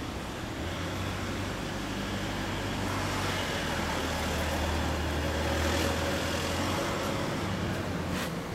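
A motor vehicle's engine passing on a road, growing louder to a peak about six seconds in and then fading.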